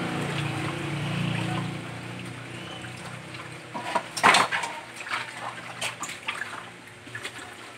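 Water running and sloshing in a sink as hands rub and rinse a whole carp, with a loud splash about four seconds in and scattered knocks of handling after it.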